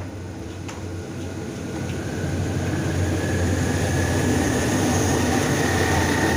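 Diesel locomotive and its train running past close by: a steady low engine rumble that grows louder from about two seconds in, with a faint high whine joining it.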